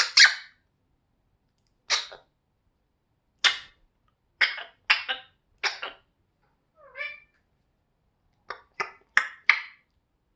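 African grey parrot coughing: a string of short, raspy coughs, some alone and some in quick runs of two to four. There is one softer, pitched squeak about seven seconds in.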